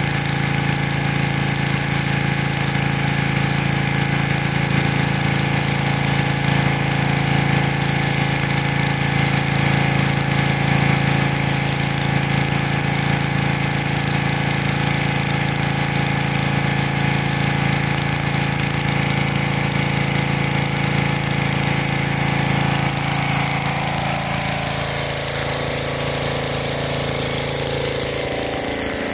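Small gas engine of a wheeled pressure washer running steadily under load, with the hiss of the high-pressure water jet on concrete. It grows a little fainter near the end.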